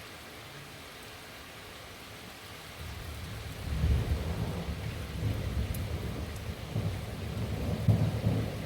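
Thunder rumbling over steady rain: the low rumble begins about three seconds in, swells, and swells again near the end.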